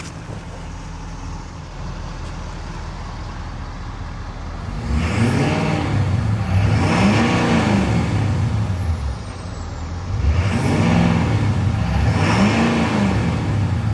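2011 Ford F-250 Powerstroke 6.7-litre V8 turbo diesel idling, then revved four times in two pairs about five and ten seconds in, the engine note rising and falling with each rev. A high turbo whistle climbs and falls away with every rev.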